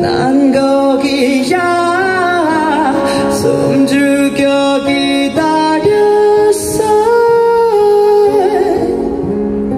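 Male singer singing a melody live into a microphone over instrumental backing.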